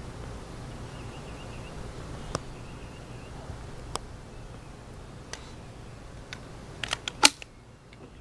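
Steady low background noise with a few light, scattered clicks, then a quick run of four or five sharp mechanical clicks about seven seconds in, the loudest sound here.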